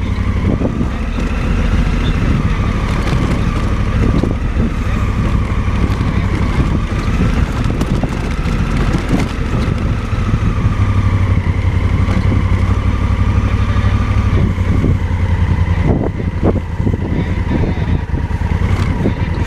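Motorcycle engine running steadily, with a few sharp knocks along the way.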